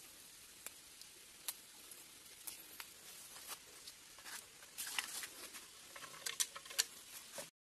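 Close hand-handling noise over dry bamboo leaf litter: scattered sharp clicks and light crackles, growing busier about four seconds in, then cutting off abruptly near the end.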